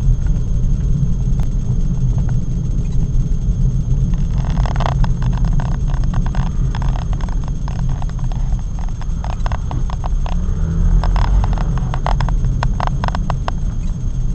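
Steady low rumble inside a car creeping along in traffic. From about four seconds in until near the end it is joined by a run of quick, irregular clicks and taps.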